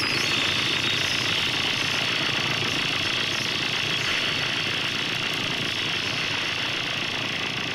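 Harsh noise music: a dense, steady wall of distorted hiss and rumble with no beat or voice, slowly fading.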